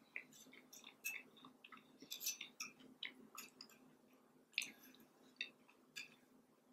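Quiet, close-miked chewing and wet mouth clicks as a person eats scrambled eggs and potatoes, with a metal fork tapping and scraping on a plate. The clicks come irregularly over a faint steady hum.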